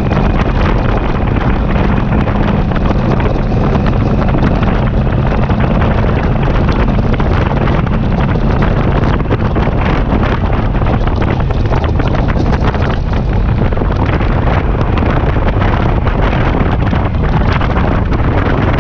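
Steady wind rush buffeting the microphone of a helmet camera on a moving touring motorcycle, with the motorcycle's engine running low underneath.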